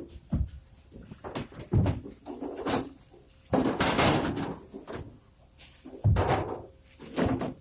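Irregular heavy thumps, knocks and scrapes of frozen cargo being handled and dropped while a ship's freezer is unloaded, with one longer scraping rush about halfway through.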